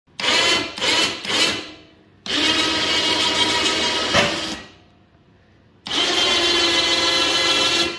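Harbor Freight Badland electric winch motor on the ATV rack working the snow plow's lift cable: three quick bumps, then two steady runs of about two seconds each with a short pause between them, a steady whine.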